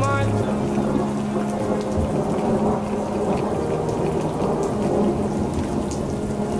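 Steady rain falling, with thunder rumbling low underneath.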